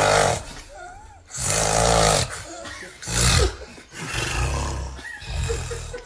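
Loud, rasping snoring: a string of about five snores, one every second or so.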